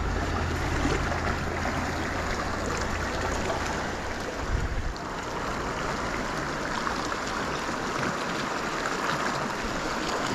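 A river running: steady rushing water. A low rumble sits under it for about the first half and stops around five seconds in.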